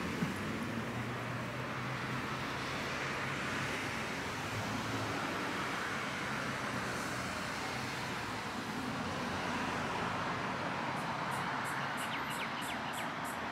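Steady road noise of a car driving, with a low hum underneath. Near the end a fast, high-pitched ticking joins in, about three ticks a second.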